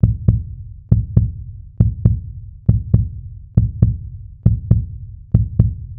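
Heartbeat sound effect: a steady lub-dub of deep double thumps, about one pair every second.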